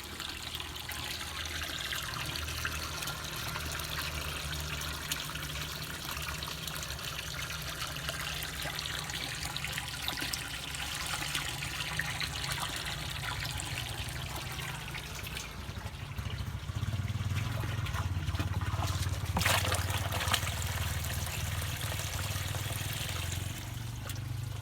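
Water trickling and splashing continuously over a steady low hum, with a brief louder splash about three-quarters of the way through.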